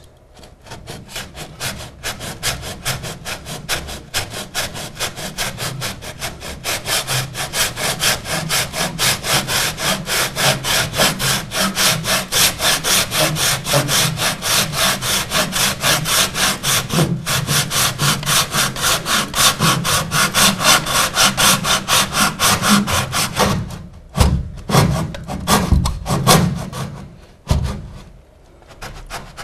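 Handsaw cutting through the foot of a wooden door surround, its blade held flat on an offcut: quick, even back-and-forth strokes for over twenty seconds. The sawing then stops, followed by a few louder knocks.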